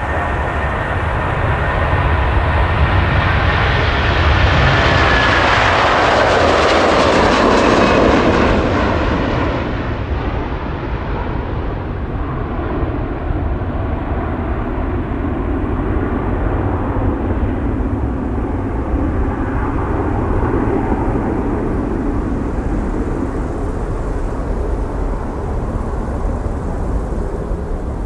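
Airbus A330-200F freighter's two Rolls-Royce Trent 700 turbofans at takeoff thrust as it lifts off and climbs out. A whine falls in pitch as the jet passes, and the sound is loudest a few seconds in. It then goes duller and lower as the aircraft climbs away.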